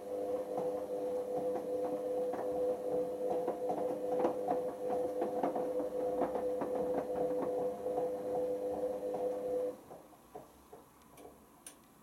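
Hoover Optima OPH714D washing machine tumbling a wet, sudsy wash load: a steady motor whine from the turning drum, with the clothes and water splashing as they drop. The motor stops about ten seconds in, leaving a few faint drips and splashes as the drum comes to rest.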